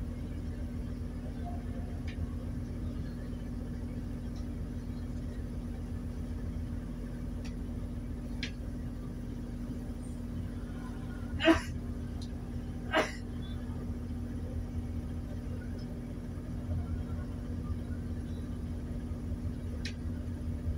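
Tour boat engine running with a steady low drone and hum, heard from on board. A little past the middle, two short sharp sounds come about a second and a half apart.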